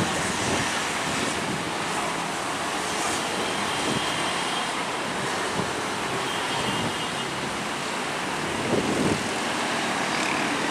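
Steady rush of road traffic with wind on the microphone, with brief louder bumps near the start and about nine seconds in.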